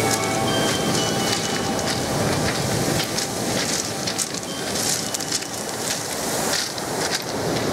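Ocean surf breaking and washing over a pebble beach: a steady rushing noise that swells and eases.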